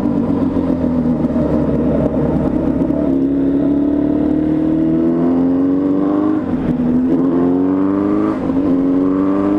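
Yamaha XJ6N's inline-four engine under way, holding a steady note at first, then rising in pitch as it accelerates, with two upshifts where the pitch drops, about six and eight and a half seconds in.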